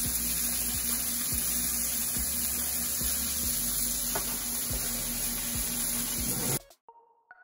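Flour-coated chicken frying in hot oil in a pan: a steady sizzle with occasional clicks. It cuts off abruptly about six and a half seconds in, and a few soft mallet-instrument notes of music follow, stepping downward.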